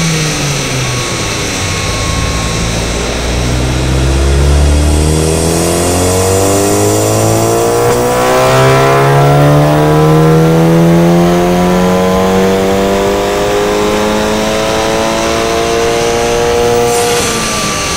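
Volkswagen Golf VII GTI's turbocharged 2.0-litre four-cylinder making a long full-throttle dyno pull: the engine and exhaust note climb steadily in pitch for about fifteen seconds, then drop as the throttle is released near the end.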